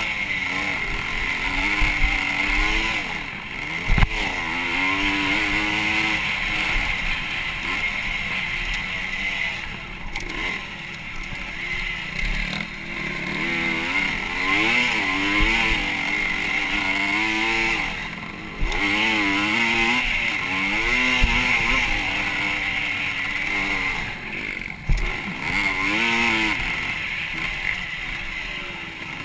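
Motocross dirt bike engine, close to the camera, revving up and falling back over and over as the bike accelerates and shifts through the gears. A few sharp knocks stand out, about 4 seconds in and again near 25 seconds.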